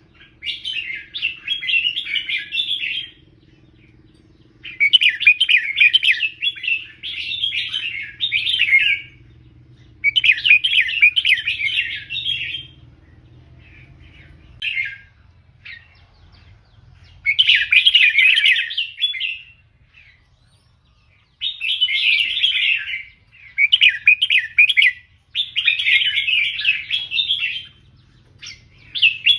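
A caged red-whiskered bulbul singing: a teacher bird repeating its loud, warbling song phrases of a few seconds each, with short pauses between them.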